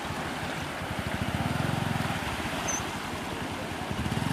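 Small motorcycle engine idling in shallow river water, with an even low pulsing that swells slightly about a second in and again near the end, over the rush of the river flowing around the wheels.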